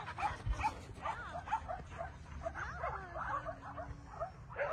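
Several dogs barking and yipping in quick, overlapping short calls, several a second, with whines mixed in; a longer, lower drawn-out whine runs through the second half.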